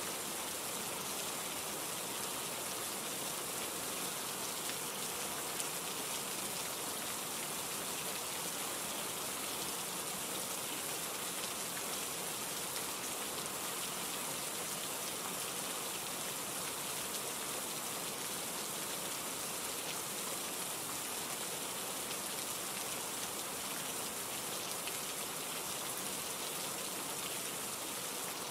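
Steady rain falling, an even patter of raindrops with no change in strength.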